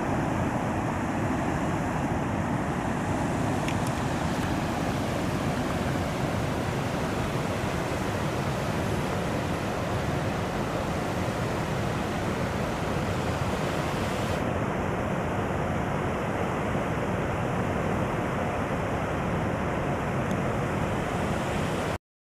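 Steady roar of a large waterfall, the Great Falls of the Passaic River, pouring without a break.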